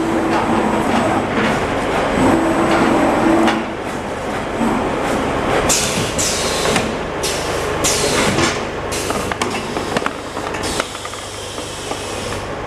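Automatic shaftless paper-core cutting machine running, a steady mechanical hum and clatter with several short hisses about halfway through.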